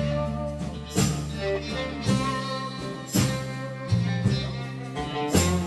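Background music with a strong beat about once a second.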